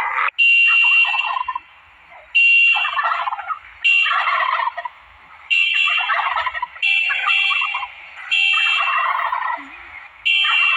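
Turkey gobbling over and over, about seven rough, warbling calls of a second or so each with short breaks between them.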